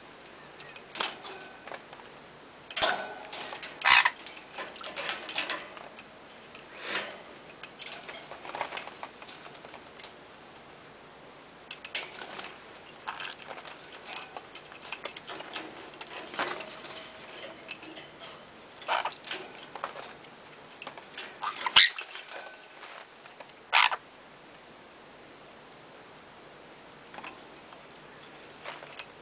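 Sun conures at their bath: irregular small splashes, clicks and taps, with two louder ones about 4 seconds and 22 seconds in.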